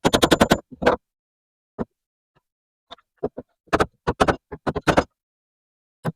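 Sharp wooden knocks in quick runs, a hard hickory wedge being hammered into the slot of a mallet's handle during assembly: a quick run at the start, a few single knocks, then a longer, faster run a little past the middle.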